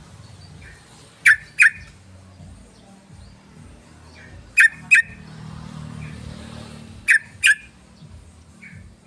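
Yellow-vented bulbul (trucukan) calls played as a lure recording. Three pairs of short, sharp, loud notes come about a third of a second apart, the pairs repeating every two and a half to three seconds, with a fainter single note just before each pair.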